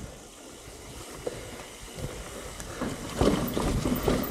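Mountain bike rolling down a dirt trail: tyre noise on the ground with scattered clicks and rattles from the bike, getting louder and rougher about three seconds in.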